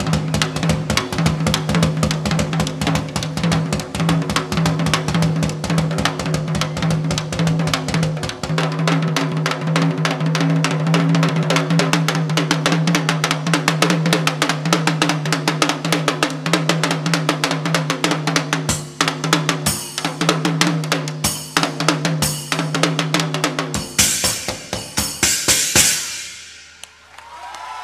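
Tabla and drum kit trading rapid, dense strokes over a held low note, building to a run of loud cymbal crashes that ends a percussion passage abruptly near the end, then ringing out.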